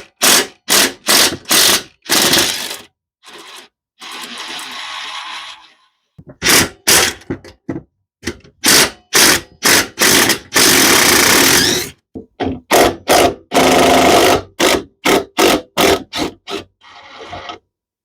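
Ratchet wrench clicking in runs of quick strokes with short pauses between them, backing out a lawnmower's engine mount bolts. One longer unbroken run comes about two thirds of the way through.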